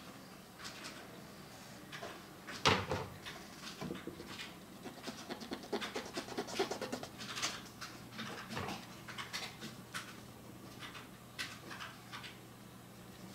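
Brush pen drawing on paper: short, scratchy strokes one after another with small taps, and one louder knock about three seconds in.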